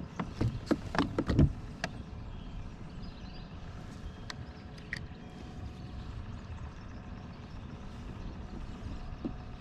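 A quick run of knocks and clatters as a fishing rod is handled against the rod holders and plastic hull of a kayak, then a faint steady hiss with a few light clicks.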